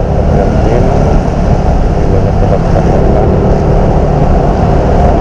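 Yamaha NMAX 155 scooter's single-cylinder engine running at a steady road speed, under a constant low rumble of wind on the microphone.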